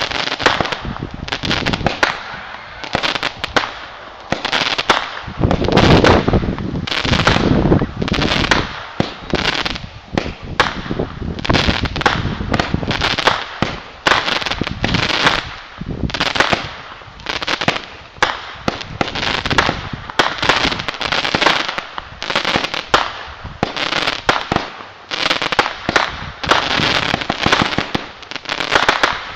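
Aerial fireworks launching and bursting in a dense run of bangs and pops with hardly a pause, loudest about six seconds in.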